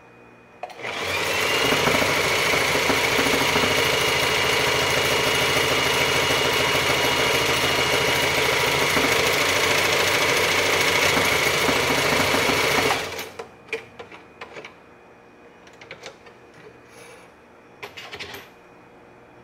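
Singer Simple electric sewing machine running at a steady fast speed, stitching through thick folded fabric. It starts about a second in and stops suddenly about two-thirds of the way through, followed by faint clicks and rustles of the fabric being handled.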